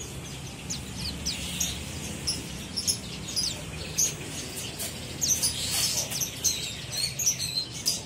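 Small caged songbirds chirping: many short, high calls, some sliding down in pitch, scattered all through and busiest after about five seconds, over a steady low background murmur.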